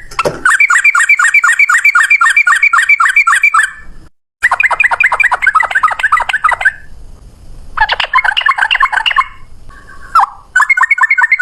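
Yellow-vented bulbul (trucukan) singing its rapid 'ropel' song: quick repeated notes, about five or six a second, in four runs with short breaks between.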